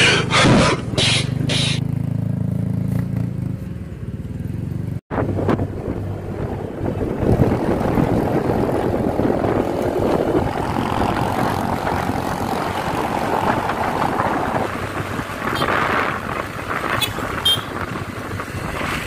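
Motorcycle engine running while riding, with wind rushing over the microphone. The sound cuts out for an instant about five seconds in, and after that the wind noise is heavier.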